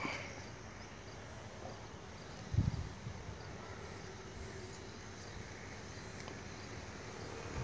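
Quiet outdoor ambience with faint high insect buzzing, and one low thump on the microphone about two and a half seconds in.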